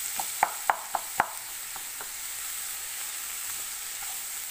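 Sliced onions sizzling in oil in a nonstick pan as they are stirred with a spatula, which knocks against the pan about five times in the first second and a half; after that the sizzle runs on steadily.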